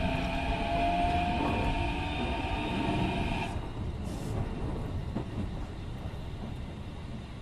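Keikyu 1500 series train running, heard from inside the car. Its Mitsubishi IGBT-VVVF inverter and traction motors whine in several steady tones over the wheel and track rumble. The whine cuts off abruptly about three and a half seconds in as the power shuts off, leaving the rumble of the car running on.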